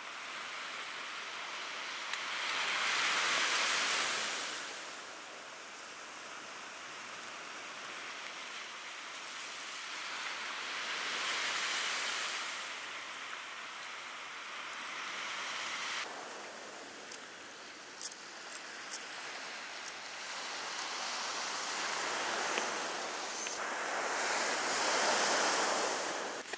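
Ocean surf breaking on a beach: a steady wash that swells and fades in slow surges every several seconds. A few small clicks come through in the second half.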